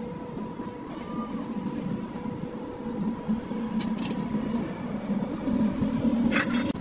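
Steady mechanical rumble of running machinery with a constant hum, broken by a couple of sharp clicks about four seconds in and a short rattle of clicks near the end.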